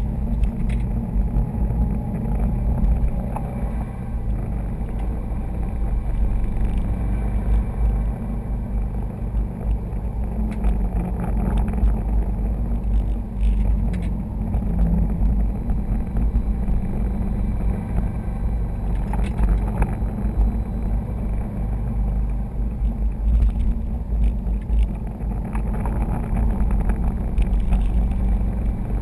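Cabin noise inside a 2011 Subaru STI at about 40 mph with the windows closed and the A/C on: a steady low rumble of engine and tyres under the hum of the air conditioning.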